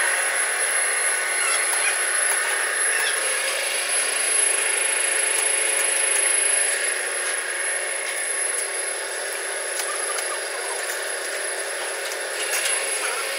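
Screw flight cold rolling machine running, its electric motor and rollers giving a steady mechanical noise with a thin high whine as steel strip is rolled into a helical auger flight; it eases off slightly about halfway through.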